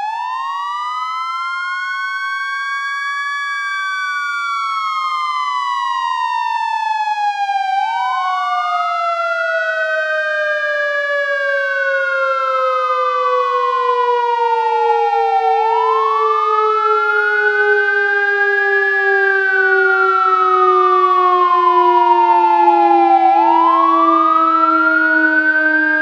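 Fire truck siren wailing: a tone that rises for about three seconds and falls for about four, repeating roughly every eight seconds, over a second tone that slowly sinks in pitch. It grows gradually louder.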